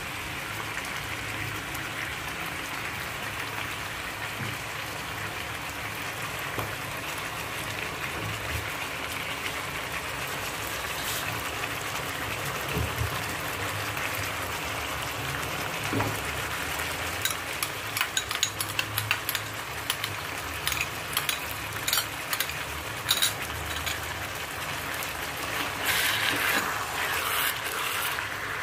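Chicken pieces frying in mustard oil in a heavy pan, a steady sizzle as tomato puree is poured in. In the second half a silicone spatula stirs the pieces, adding many short clicks and knocks against the pan, thickest near the end.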